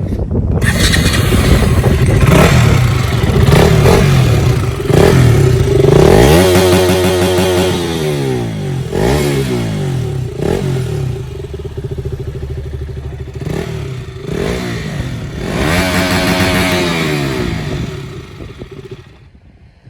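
KTM RC 200 (BS4) single-cylinder engine running while standing and being revved repeatedly: several throttle blips, each rising in pitch and falling back to idle. The engine dies away near the end.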